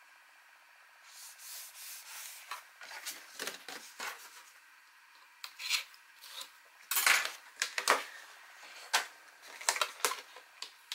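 Sheets of cardstock being handled and slid over a paper album: soft rubbing and rustling of paper on paper, with a run of sharp taps and crinkles as the panels are set down and pressed in place, the loudest about seven seconds in.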